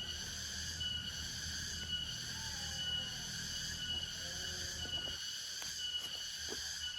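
A chorus of forest insects droning in several steady high-pitched bands, with one shrill tone pulsing about once a second.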